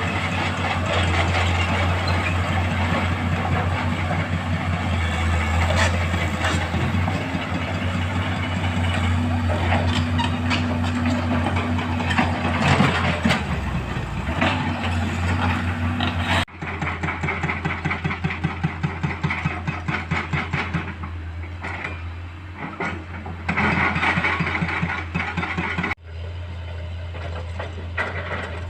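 Komatsu excavator's diesel engine running steadily at work, with a deep hum and scattered knocks. The sound changes abruptly about two-thirds of the way in and again near the end.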